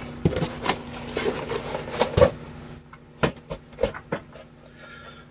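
A cardboard shipping box being handled and moved off a countertop: rustling and scraping for a few seconds, then a handful of sharp knocks and taps.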